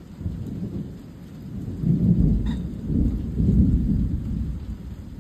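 Thunder rolling: a deep rumble that builds about two seconds in, surges two or three times, then fades toward the end.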